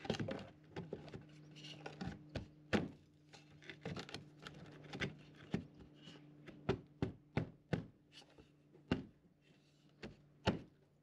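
Irregular knocks on wood as a window frame is knocked into its opening in a wooden boat hull until it sits snug, ending in a run of evenly spaced knocks about three a second. A faint low steady hum runs underneath and stops about nine seconds in.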